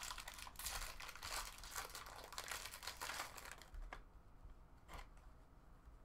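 Foil wrapper of a baseball card pack being torn open and crinkled, a dense crackling for the first few seconds. Then it goes quieter, with a few sharp clicks as the cards are pulled out and handled.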